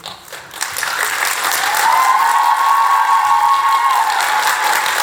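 Audience applauding, swelling up about half a second in and then holding steady. A long held high call rises over the clapping in the middle.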